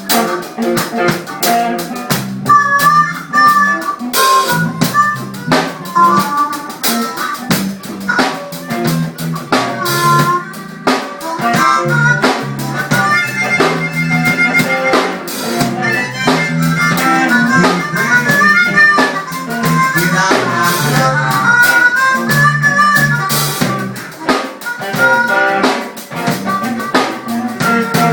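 Live blues band playing an instrumental passage: a harmonica solo over drums, bass and guitar.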